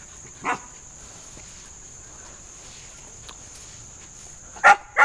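Airedale terrier puppy barking: one short bark about half a second in, then two louder sharp barks close together near the end.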